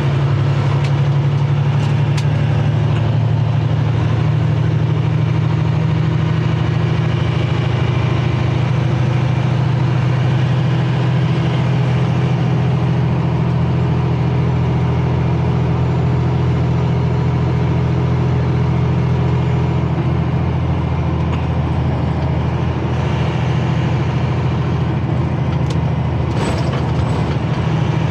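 Semi-truck's diesel engine running steadily under way, heard from inside the cab, a strong low drone with road noise. A few faint clicks near the start and near the end.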